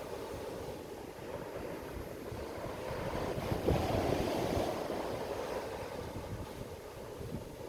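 Waves washing in: a rushing noise that swells about halfway through, then slowly eases off.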